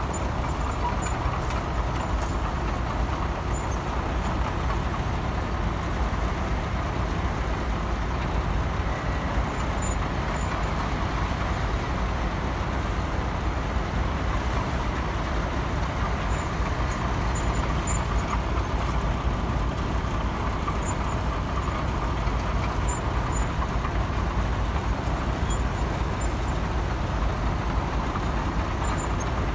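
Heavy construction machinery engine running steadily, a constant low sound without pauses.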